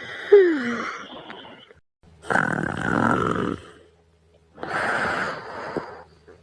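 The end of a yawn, sliding down in pitch to a short whine, then two long, rasping, snore-like breaths about two seconds apart as the yawner dozes off.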